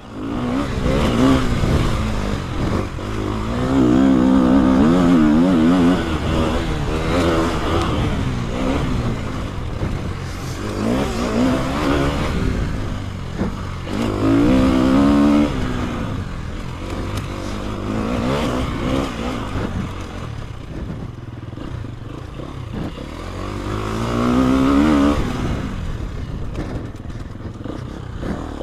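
KTM EXC-F 250's single-cylinder four-stroke engine pulling hard around a dirt enduro track, the revs rising and falling again and again with several strong surges.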